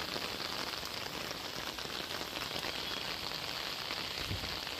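Heavy rain falling steadily on a wet road and on an open umbrella held over the camera.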